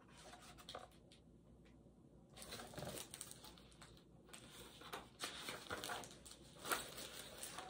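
Faint, scattered rustling and crinkling of paper as a picture book's pages are handled, starting about two and a half seconds in.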